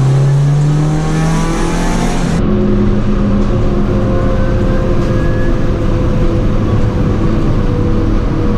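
Honda Civic hatchback engine accelerating, its pitch rising, then dropping suddenly about two and a half seconds in, as in an upshift. After that it runs steadily at a lower pitch while cruising.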